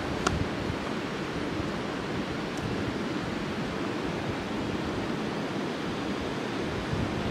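Steady outdoor rushing noise, like moving air or water, with a couple of faint clicks.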